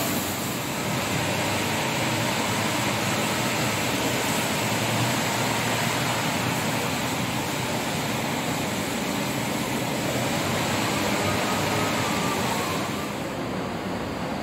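Steady, even rushing background noise with no distinct events; its highest part thins out near the end.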